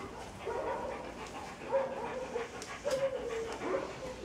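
A dog whining in about three drawn-out, wavering whimpers.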